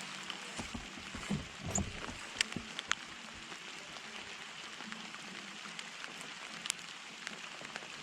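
Heavy rain falling steadily, a constant hiss with sharp ticks of close drops: several in the first three seconds and one near the end. A few soft low thumps come about one to two seconds in.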